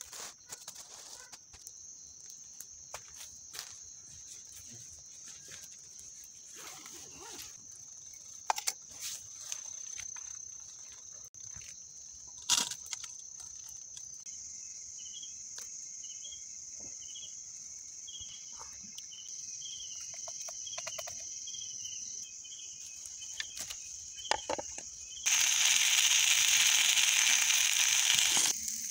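Crickets chirring in a steady high trill, joined about halfway by a second pulsing insect call, with scattered clicks and knocks. Near the end a loud sizzle of fish frying in oil over a wood fire cuts in for about three seconds.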